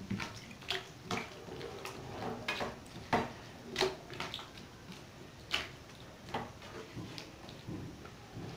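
A cooking spoon stirring chicken, vegetables and pasta in a watery broth in a frying pan: irregular clinks and scrapes of the spoon against the pan, with the liquid sloshing.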